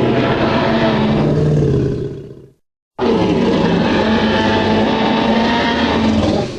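Tyrannosaurus rex roar sound effect, heard twice: a low, pitched roar that fades out after about two and a half seconds, a brief silence, then a second, longer roar that fades out near the end.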